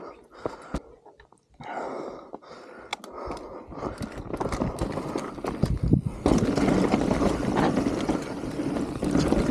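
Mountain bike rolling down a dirt forest singletrack: scattered sharp clicks and rattles from the bike over roots and rocks, a heavier thump about six seconds in, then a steadier, louder rush of tyre and riding noise as speed builds.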